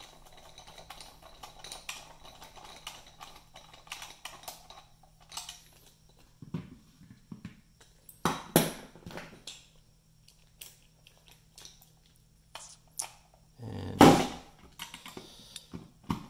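T15 Torx screwdriver tightening screws into a plastic monitor housing. A run of quick small clicks and scrapes for the first few seconds, then scattered sharper clicks and knocks of tool against plastic, the loudest about 14 seconds in.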